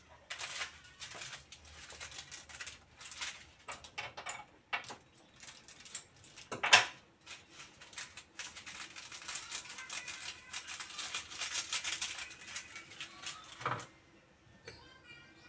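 Kitchen handling noise: scattered clicks and knocks of utensils and containers, with one sharp louder knock about seven seconds in and a stretch of dense rattling crackle in the second half.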